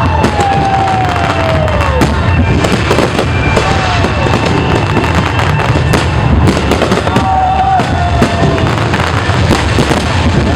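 Aerial fireworks bursting in rapid, overlapping succession: a dense run of bangs and crackles, with several falling whistles.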